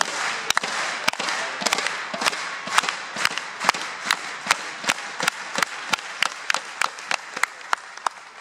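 Arena crowd clapping in unison, the claps speeding up steadily over a background of crowd noise that fades near the end.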